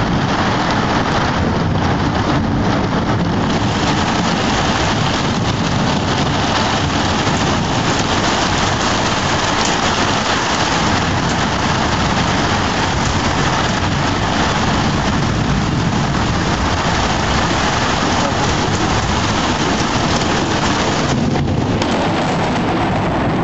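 Steady, heavy rain in a thunderstorm: a dense, even hiss that hardly changes in loudness.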